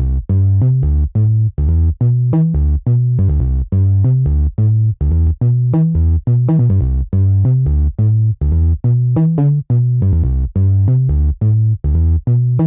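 Background electronic music: a synthesizer playing short, detached notes in a steady rhythm over a pulsing bass line.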